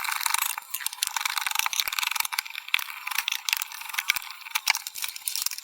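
Fast-forwarded handling noise of an HCL desktop speaker being taken apart: dense, rapid clicking and rattling, thin-sounding with no low end.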